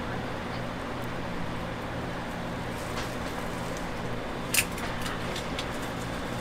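Steady background hum and noise of a busy street-food stall, with one sharp click about four and a half seconds in.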